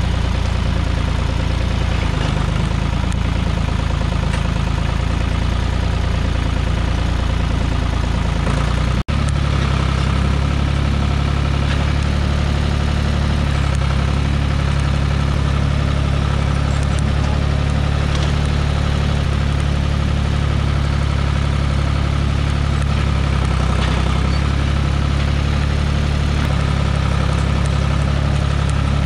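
Small farm tractor's engine running steadily while the tractor is driven over snow with logs on its front-loader forks. A momentary break about nine seconds in, after which the engine note is slightly steadier.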